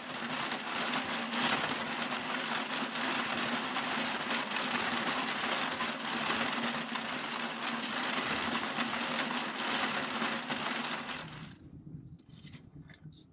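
Vintage Ice Monitor hand-crank ice cream freezer being cranked: the gear head whirring steadily as the can turns in the packed ice. It stops about eleven seconds in, followed by a few light clicks as the can is handled.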